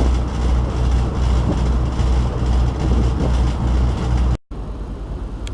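Tour boat engine running with a steady low drone, heard on board. It breaks off for a moment about four seconds in and resumes quieter.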